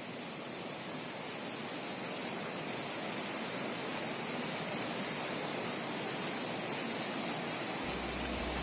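Mountain stream rushing over boulders in a rocky cascade: a steady hiss of white water, growing slightly louder. A low rumble comes in near the end.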